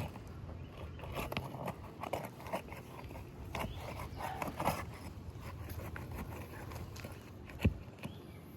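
Asphalt roof shingles being broken loose from their seal strips: irregular crackling and scraping as the tabs are pried up, with one sharp knock near the end.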